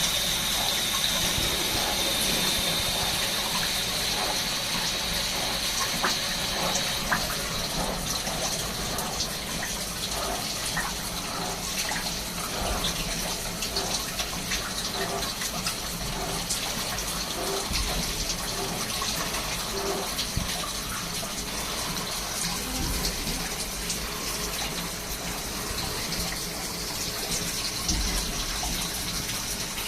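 Swiss-type CNC lathe machining a bone screw, with the steady splashing hiss of cutting fluid flooding the work. A high whine fades out about seven seconds in, and light clicks come and go throughout.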